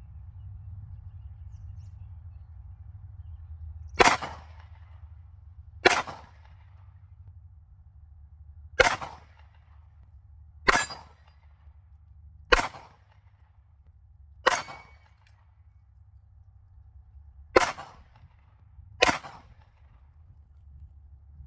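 .45 pistol fired eight times at an uneven pace, the shots about one and a half to three seconds apart.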